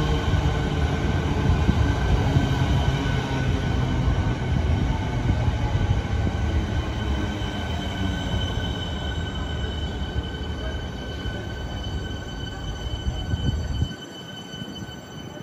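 Melbourne Metro electric suburban train rolling past along the platform: a loud rumble of wheels and running gear with a high, steady whine of several tones that slowly fades. The rumble drops away sharply near the end as the last car passes.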